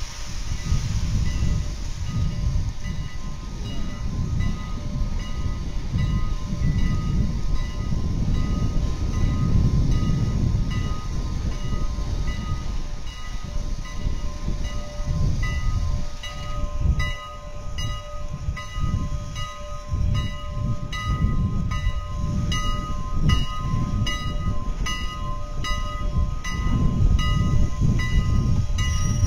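Steam locomotives working close by: a continuous, fluctuating low rumble with faint steady tones over it. From a little past halfway, a regular beat of about two ticks a second comes in as one locomotive pulls its cars forward.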